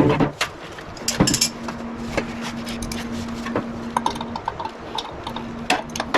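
Scattered metallic clicks and knocks of tools and parts being handled on a furnace blower assembly while its failed blower motor is worked loose, over a steady low hum.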